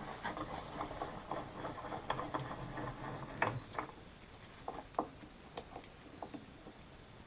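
Irregular small clicks and taps of hand tools and metal parts being handled while working on a chainsaw's oil pump, thinning to a few scattered taps after about four seconds.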